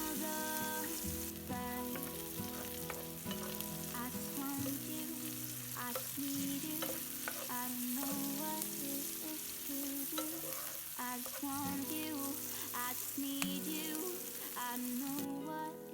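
Food sizzling and frying in a hot skillet, under a background pop song. The sizzling drops away near the end.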